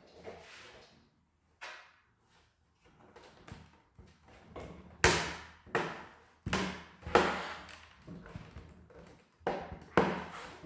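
A series of sharp plastic clicks and knocks, sparse at first and then louder and more frequent from about halfway, as the PS4 Pro's top plastic cover is prised up and unclipped.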